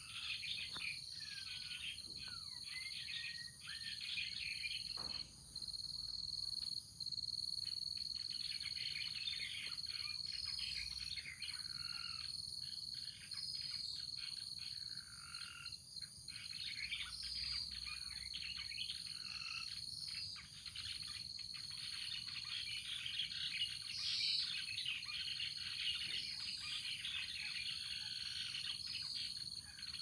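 Outdoor dawn-chorus-like ambience: many birds chirping and calling with short gliding notes, over a steady high-pitched insect drone such as cicadas or crickets.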